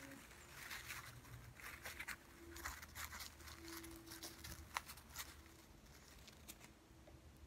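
Faint crinkling and tearing of a paper napkin worked by an Indian ringneck parakeet's beak: scattered small crackles, with one sharper click about two-thirds of the way through.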